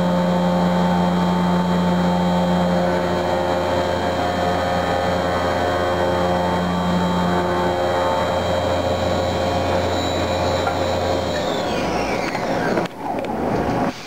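Haas CNC vertical mill cutting metal blocks with a large milling cutter under flood coolant: a steady, multi-toned spindle whine over a strong machine hum. About three-quarters through, the hum stops and high tones slide up and down as the machine changes motion, and the sound drops off sharply near the end.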